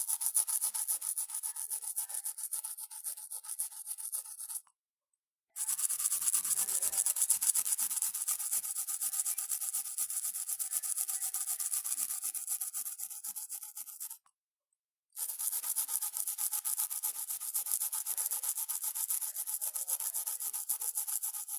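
Fingers scratching stubbly facial hair at the side of the mouth, making a quick, repeated scrubbing that imitates teeth being brushed with a toothbrush. The scrubbing stops dead twice, about five seconds in and again about fourteen seconds in, for under a second each time.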